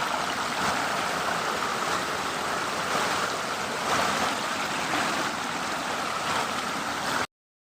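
Water of a river waterfall rushing steadily. It cuts off suddenly near the end.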